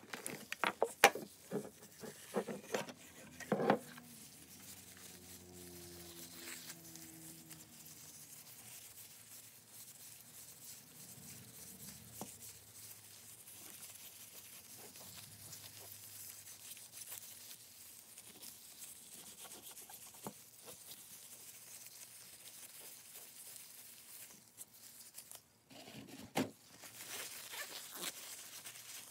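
Gloved hands handling and rubbing the small knob of a block plane during cleaning: a few clicks and taps in the first few seconds, then faint rubbing, and near the end a louder rustle as a paper towel wipes the knob.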